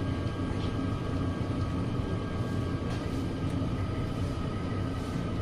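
Steady low background rumble with a faint, even hum above it.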